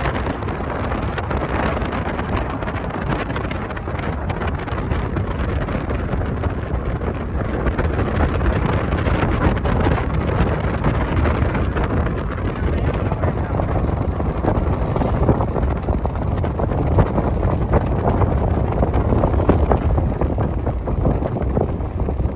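Steady road and wind noise from a moving car, with a deep rumble and wind buffeting the microphone.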